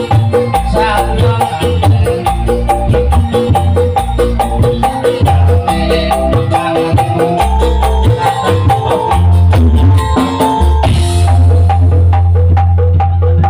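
Live music from a small stage band: a keyboard playing a bright, mallet-like melody over hand drums beaten in a steady rhythm. About eleven seconds in the high sounds drop away, leaving a strong deep bass.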